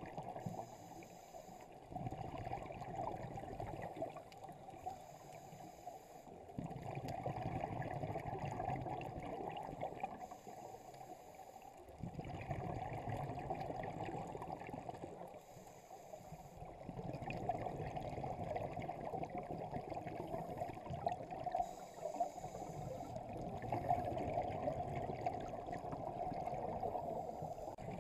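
Scuba diver breathing through a regulator underwater: a short hiss on each inhale, then a longer rush of bubbling on each exhale, repeating about every five to six seconds.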